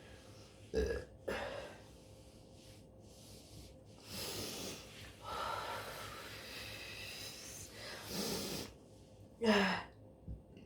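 A woman breathing noisily between burps in long drawn breaths. There is a short low burp about a second in and another short burp, falling in pitch, near the end.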